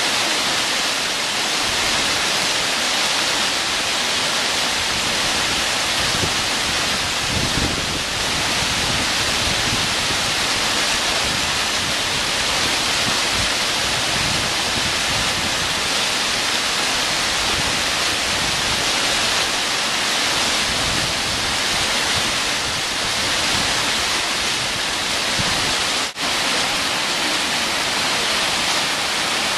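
Small waterfall tumbling over rocks into a stream: a steady rush of whitewater, with a momentary break near the end.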